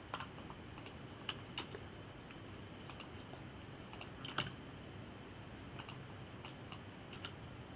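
Scattered computer keyboard key presses and mouse clicks, a few separate clicks with the loudest about four and a half seconds in, over a faint steady low hum.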